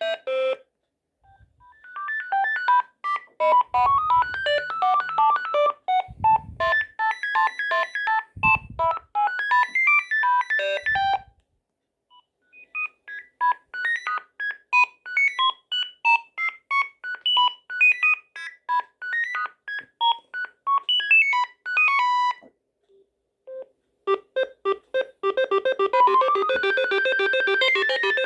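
Sagem MW 3020 mobile phone playing its built-in ringtones: three short electronic melodies one after another, with brief pauses between them, the third a fast run of repeated notes.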